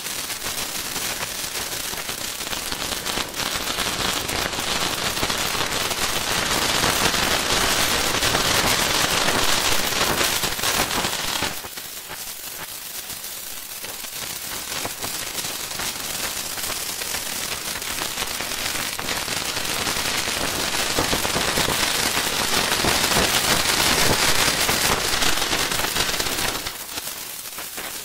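Electric sizzle: a dense, continuous crackling fizz that swells louder, drops away suddenly about eleven seconds in, then builds again and drops once more near the end.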